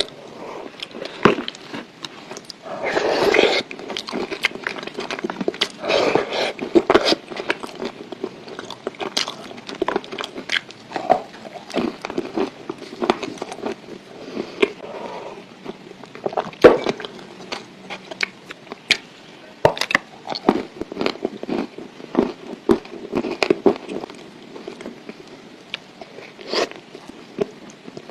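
A person biting and chewing pieces of edible clay close to the microphone: irregular sharp crunches and clicks over a soft, wet chewing sound.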